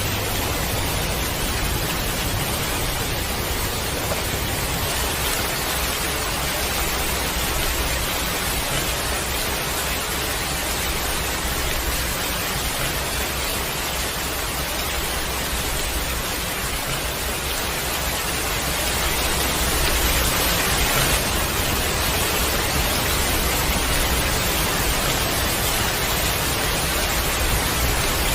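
Heavy rain falling steadily, a dense even hiss with a low rumble underneath. It grows a little louder about two-thirds of the way through.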